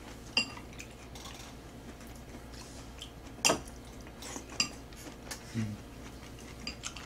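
Chopsticks clicking and scraping against a bowl and a metal tray of tteokbokki during a meal. The clicks are light and scattered, with the sharpest about three and a half seconds in.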